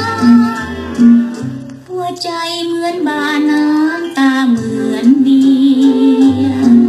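Old Thai song from an original vintage recording: a woman sings over a backing band with bass and plucked guitar.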